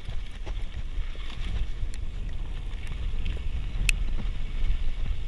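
Mountain bike rolling over a dirt singletrack: a steady rumble and rattle of tyres and frame with wind rushing on the microphone, and one sharp click about four seconds in.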